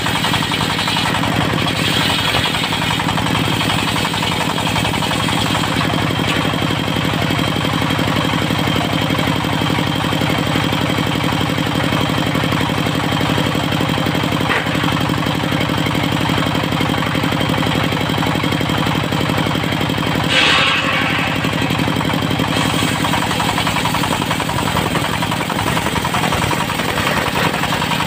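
Diesel engine of a portable circular-saw sawmill running steadily with a hard, even knock, with a short higher-pitched burst about twenty seconds in.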